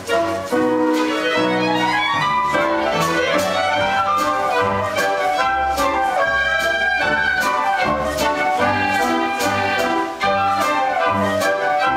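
Lively orchestral accompaniment to a stage-musical dance number, with woodwinds and brass over a steady beat and an upward run in the melody over the first couple of seconds.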